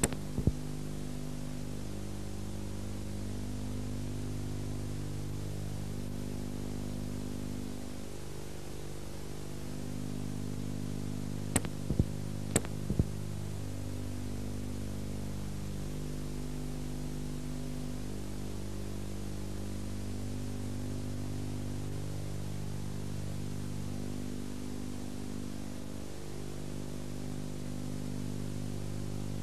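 Soft, held background music chords that change every few seconds under a steady hiss from old videotape. Sharp clicks come at the very start and in a cluster about twelve seconds in: tape glitches.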